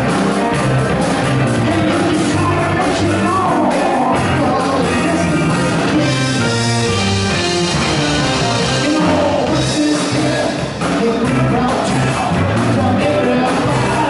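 Live blues band playing an electric blues shuffle: electric guitars, electric bass and drum kit.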